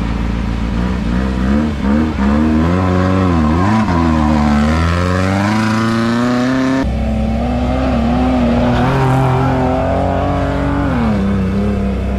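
Off-road race vehicle engines revving. One note swings up and down repeatedly, then climbs steeply before breaking off suddenly about seven seconds in. A steadier engine note follows and drops in pitch near the end.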